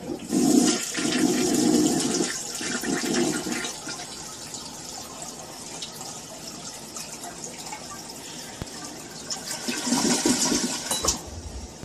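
Toilet flushing, water rushing and swirling in the bowl, loudest in the first couple of seconds and surging again about ten seconds in.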